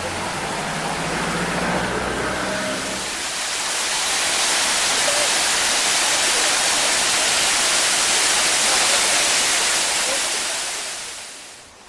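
Rushing water, a steady even hiss that swells a few seconds in and fades away near the end. A low hum sits under it for the first three seconds.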